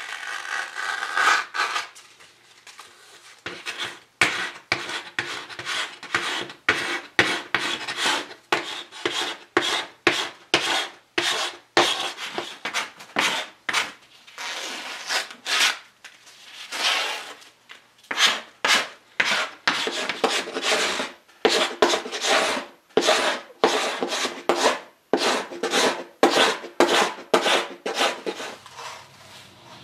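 Hand pull scraper dragged over the back of wooden tambour door slats, scraping off the failed fabric backing, in repeated rasping strokes at roughly one to two a second.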